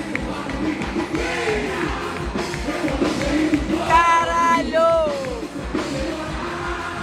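Loud amplified music with a steady beat and a singing voice; about four seconds in a voice holds a long note, then slides down and falls away.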